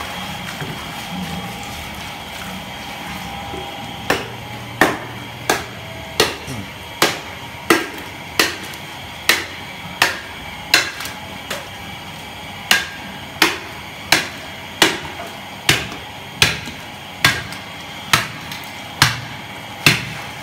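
Repeated chopping blows into a pig carcass, splitting it down the backbone. Sharp single strikes start about four seconds in and repeat steadily, a little faster than one a second.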